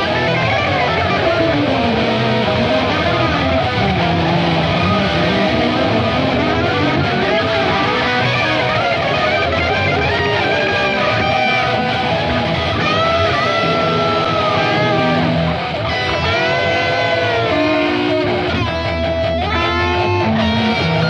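Music of distorted, overdriven electric guitars, with many notes that glide up and down in pitch.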